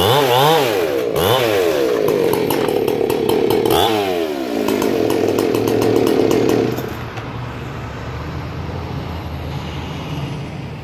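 Decked and ported chainsaw revved up and down in quick bursts, then held high and steady at full throttle. About seven seconds in the throttle is released and the saw drops to a steady idle.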